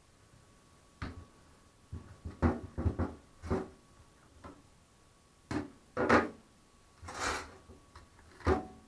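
About a dozen scattered knocks and clunks of things being handled, with quiet gaps between and one longer scrape a little past halfway, over a faint steady hum.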